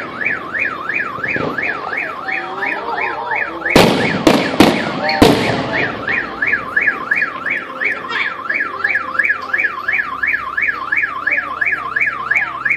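Car alarm siren sounding continuously, a tone warbling rapidly up and down about four times a second. Several sharp firework bangs go off over it: one about a second and a half in, then a loud cluster of four around four to five seconds in.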